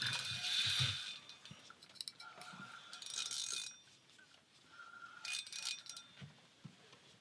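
Fishing reels with lake trout hooked, reeling and clicking in three short spells with quieter gaps between.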